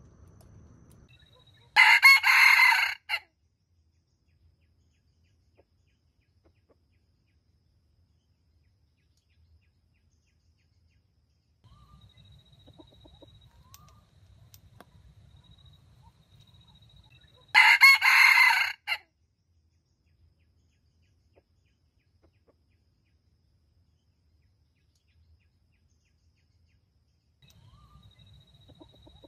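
Junglefowl rooster crowing twice: two loud, short crows about sixteen seconds apart, with quiet between them.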